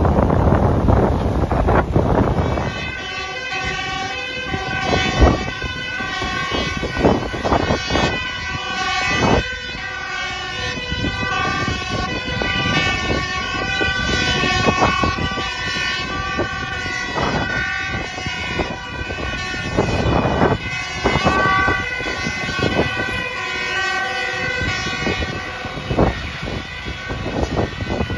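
Wind buffeting the microphone over passing traffic. From about three seconds in come the sirens of several approaching fire engines: steady tones at several pitches that keep switching back and forth, fading near the end as a fire truck passes close by.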